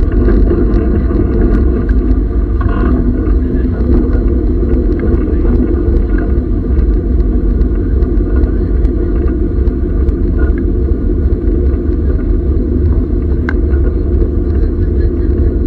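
Historic train running, heard from on board as a steady low rumble with faint scattered clicks.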